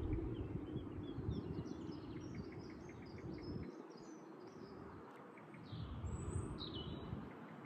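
Outdoor ambience of small birds chirping and trilling, with a couple of gliding calls near the end, over a low rumble that fades after the first few seconds.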